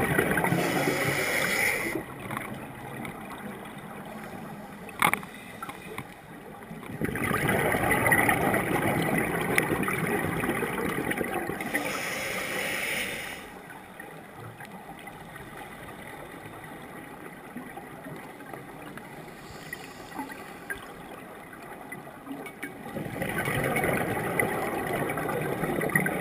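Scuba regulator exhaust bubbles as a diver breathes out underwater, in three long bubbling bursts with quieter stretches of breathing in between, heard through the camera's underwater housing. One sharp click sounds between the first two bursts.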